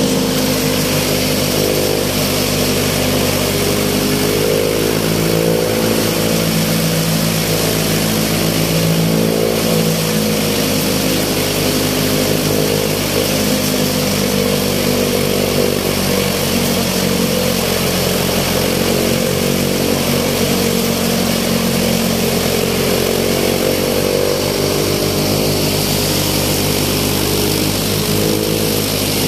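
Heavy-duty 3+4 blade chaff cutter running steadily under load, chopping dry straw as bundles are fed in: a continuous mechanical drone with a constant hiss of cut fodder.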